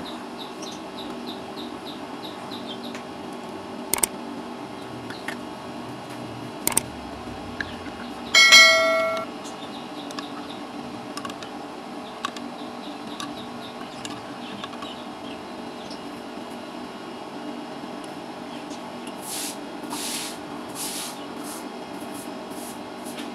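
Metal ladle clinking against a large aluminium pan of milk as it is stirred, with one loud ringing clang about eight seconds in, over a steady low hum. A bird chirps rapidly in the first few seconds.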